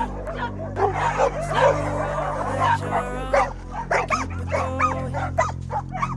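Many dogs barking and yelping together in a jumble of short, high, overlapping calls, over background music.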